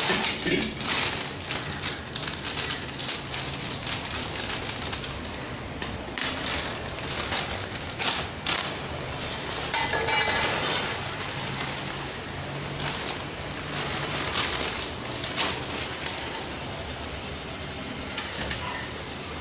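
Plastic packet of poha (flattened rice) crinkling as it is handled, then dry poha flakes pouring and rustling into a perforated stainless steel sieve, with light clinks of steel. The pour comes about halfway through.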